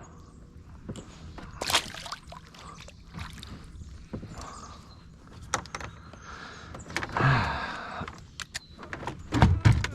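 Scattered knocks, clicks and rustles of handling inside a kayak, with a few heavier thumps against the hull near the end.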